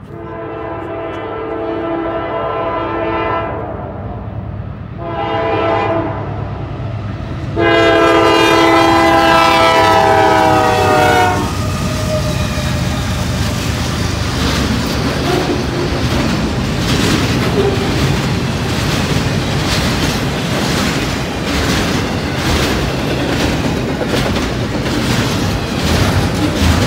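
A Norfolk Southern GE Dash 9-44CW locomotive sounds its air horn in three blasts for a grade crossing. The last blast is the longest and loudest, and its pitch drops slightly as the locomotive goes by. Then the double-stack intermodal cars pass with a steady rumble and the rhythmic clatter of wheels over rail joints.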